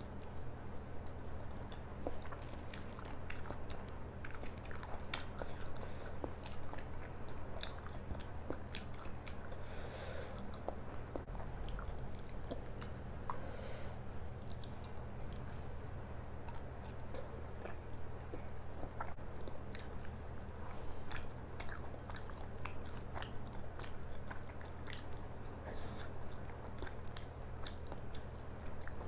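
Close-miked chewing of a mouthful of paratha and egg-stuffed capsicum: many soft, wet clicks and smacks of the mouth working through the food. A steady low hum runs underneath.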